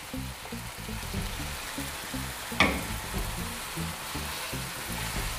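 Chicken pieces sizzling in hot oil and ground onion paste in a karahi as they are tipped in and stirred, a steady frying hiss, with a single knock about two and a half seconds in. Soft background music with a pulsing beat underneath.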